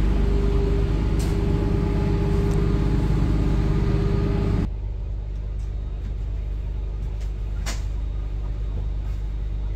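Steady idling hum of a 2016 Gillig BRT transit bus, heard from inside the cabin, with several steady tones under it. About halfway through it drops abruptly to a quieter hum, and there is a light click near the end.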